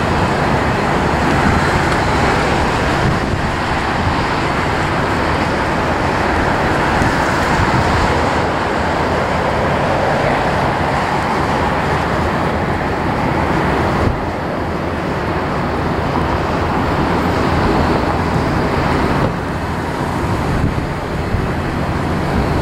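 Steady, even jet roar from a Boeing VC-25A (747-200B) on final approach, heard from the ground and mixed with wind on the microphone. It drops a little in level twice in the second half.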